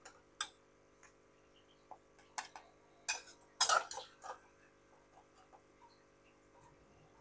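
A metal slotted spoon knocking and clinking against a kadai and a plate as boiled jackfruit pieces are scooped out of their water and set down. Irregular sharp knocks, the loudest few bunched together about three and a half seconds in.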